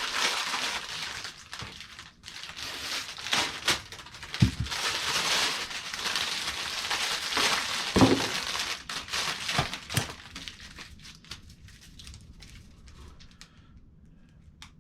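Packaging crinkling and rustling with scattered knocks as parts of a grow-light kit are unpacked by hand. It dies down about ten seconds in to faint, occasional handling clicks.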